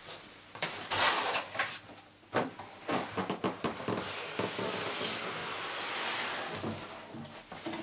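Large corrugated cardboard shipping box being opened by hand: flaps rustling with a few knocks, then a steady scrape of cardboard sliding against cardboard for a couple of seconds.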